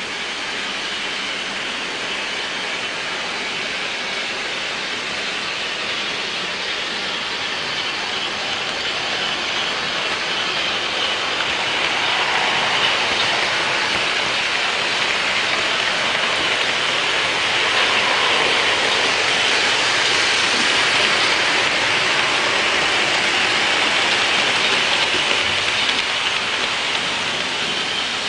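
Märklin HO-scale model trains running on the layout's track, a steady rolling whir of wheels and motors that grows louder about twelve seconds in.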